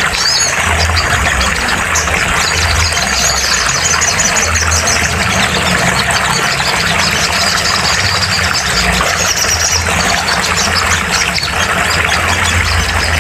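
Sunbird song: rapid, high, broken chirps and trills over a steady loud hiss and a low pulsing hum.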